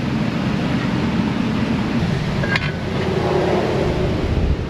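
Steady low mechanical rumble, with a single sharp click about two and a half seconds in.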